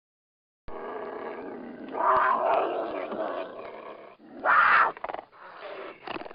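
A big cat growling, starting under a second in, swelling about two seconds in, with one short, louder roar near five seconds and a few fainter growls after it.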